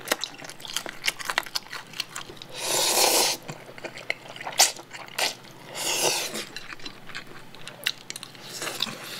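Eating sounds: wet chewing and small mouth clicks, with two long slurps of spicy chewy jjolmyeon noodles, about three and six seconds in.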